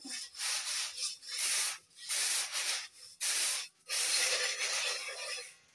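Rice grains being tossed and caught on a round woven winnowing tray, each toss a hissing rush of grain, about six in a row, fading near the end. The rice is being winnowed to clean it of husks and chaff before cooking.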